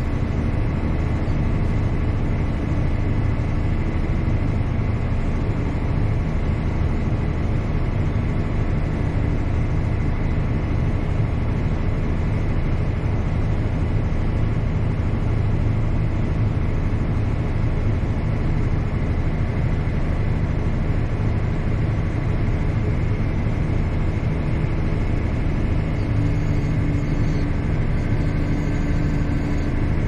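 Tractor engine running steadily under load, heard from inside the cab, a constant low drone with a faint steady high whine over it.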